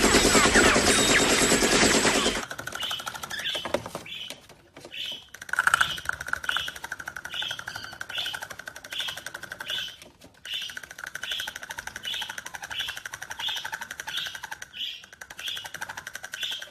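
A bird chirping over and over in an even rhythm, a little more than once a second, over a faint steady tone. A loud noisy sound fills the first two and a half seconds and then stops.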